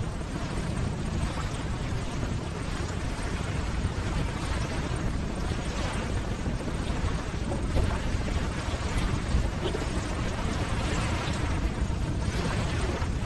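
Ocean surf: a steady rushing wash of waves with a deep rumble underneath, swelling louder as waves break, about a third of the way in and again near the end.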